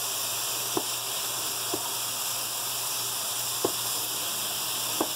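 Seasoned chicken tenders sizzling in a hot electric skillet at about 350°F, a steady frying hiss. Four short sharp clicks from the tongs come as more tenders are laid in.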